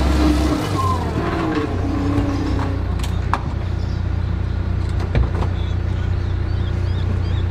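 Diesel engine of a Manitou telehandler running, easing from a higher level down to a steady idle about half a second in. A couple of short knocks sound over the engine.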